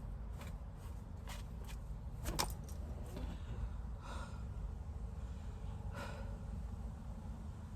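A few sharp plastic clicks and knocks as an automotive wiring harness connector is pushed and forced together by hand, the loudest about two and a half seconds in, then two strained breaths from the effort, over a steady low rumble.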